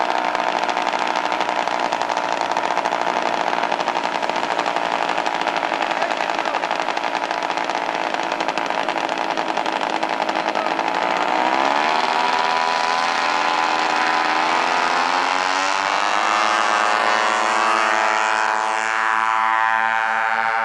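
Radio-controlled model aircraft engine running at high revs; about halfway through its pitch climbs over several seconds and then holds higher, as it throttles up for takeoff and climbs away.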